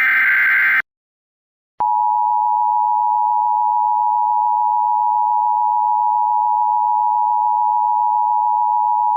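Emergency Alert System activation: the last burst of the SAME digital header, a buzzy warbling data squeal, cuts off just under a second in. After a second of silence the steady two-tone EAS attention signal begins and holds.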